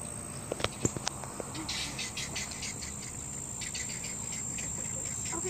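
Insects giving a steady high-pitched drone, with a few sharp clicks about half a second to a second in and a run of short raspy chirps soon after.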